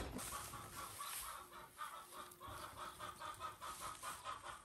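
Chickens clucking: a steady run of short, quick clucks, several a second.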